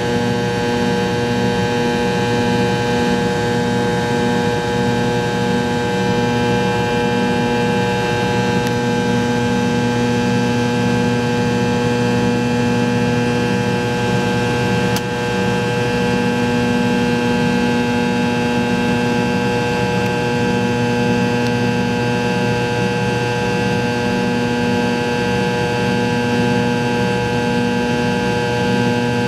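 Rear-mounted Pratt & Whitney JT8D turbofans of a McDonnell Douglas MD-88 running at climb power, heard inside the cabin next to the engine: a steady, loud drone with several held tones, and a low throb pulsing about twice a second.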